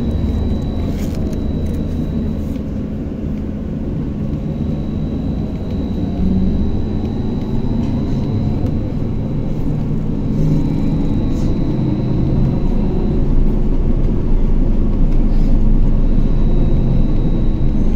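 Trolleybus interior noise while riding: a steady rumble of the running gear and road, with a thin, high steady whine coming and going. The sound grows a little louder in the second half.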